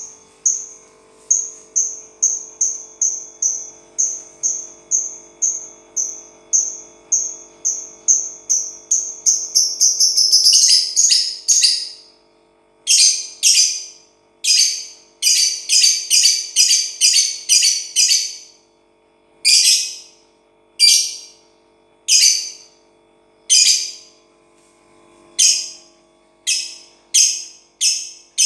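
Lovebird chirping: sharp, high chirps about two a second, quickening into a rapid run of chirps about ten seconds in, then groups of chirps broken by short pauses.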